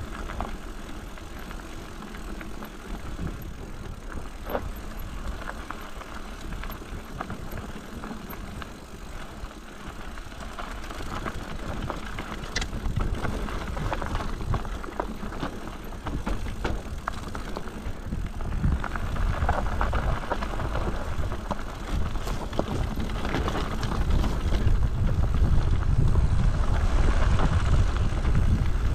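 Bicycle riding down a rough mountain trail: tyres rolling over stones and the bike rattling, with a low rumble that grows louder over the last third.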